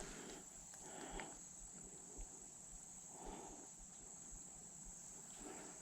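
Faint, steady high-pitched insect drone of crickets, with soft rustling swishes about every two seconds.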